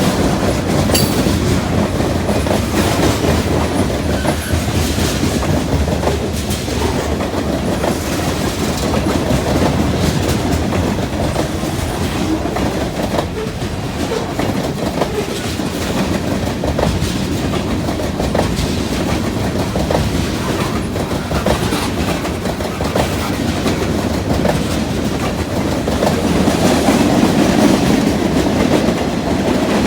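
Freight train rolling past, a steady rumble of cars with wheels clicking over the rail joints. It grows a little louder near the end.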